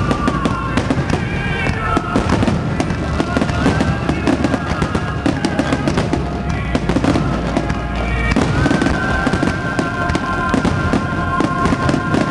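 Fireworks finale: a rapid, continuous barrage of overlapping bangs and crackling from many shells bursting at once.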